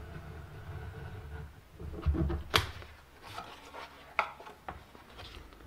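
Craft knife cutting through card, a steady scratching for about a second and a half. Then the card is picked up and handled: a few low knocks, a sharp snap about two and a half seconds in, and some lighter taps.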